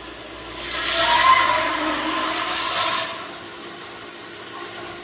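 The spindle of a robotic CNC router milling EPS foam: a steady whine under the bit cutting the foam. The cutting swells to a louder hiss with a high whine about half a second in, lasts about two seconds, and then drops back.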